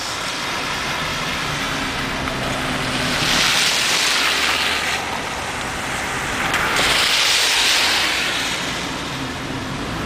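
A car driving slowly on a wet road: steady engine and road noise, with the hiss of tyres on wet pavement swelling twice, about three seconds in and again about seven seconds in.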